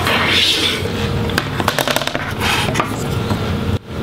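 Plastic laptop display assembly being handled and lifted free of the palm rest: scraping and rustling, with a quick run of light clicks about halfway through.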